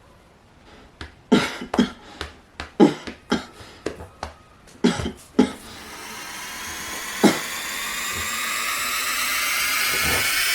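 A person coughing in a string of short, sharp coughs. Then a steady machine-like whine takes over about halfway through, slowly rising in pitch and growing louder.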